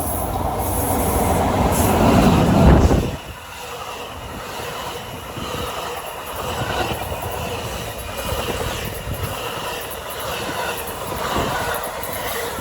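A train passing close by on the rails, its heavy rumble building and then cutting off sharply about three seconds in as it clears. Lighter rail noise with wheel clatter carries on afterwards.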